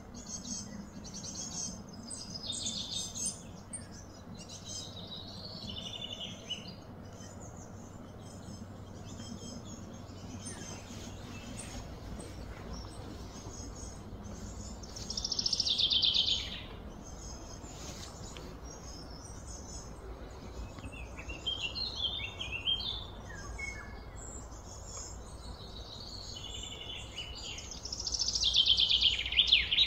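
Birds chirping and calling over a steady background of outdoor ambient noise, with two louder runs of rapid repeated notes, about halfway through and again near the end.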